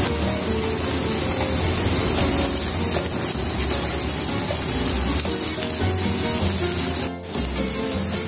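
Chopped garlic and onions sizzling in oil in a frying pan, under background music. The sound breaks off briefly about seven seconds in.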